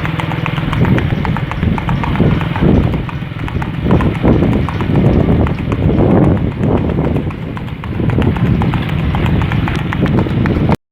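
Hoofbeats of a Mangalarga Marchador colt moving at the marcha picada, a quick, even four-beat lateral gait, clip-clopping steadily. The sound cuts off suddenly near the end.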